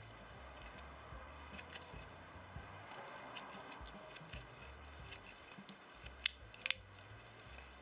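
Faint handling noise from shuttle tatting: light clicks and ticks of the plastic tatting shuttle and thread being worked in the fingers. Two sharper clicks come in quick succession near the end.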